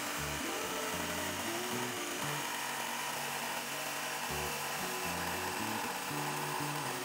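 Electric jigsaw running steadily as it cuts a curve through a wooden board, with background music playing underneath.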